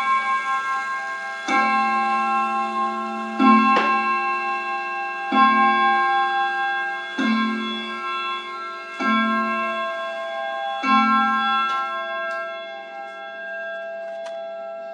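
Jolema three-train pendulum wall clock striking the hour on its gong rods: six slow, evenly spaced strokes about two seconds apart, each a rich ringing chord that fades slowly. After the last stroke the movement's tick-tock carries on faintly.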